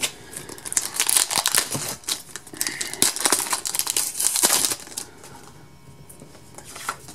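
Foil wrapper of a Pokémon TCG booster pack crinkling and tearing as it is ripped open and the cards are pulled out; the crinkling stops about five seconds in.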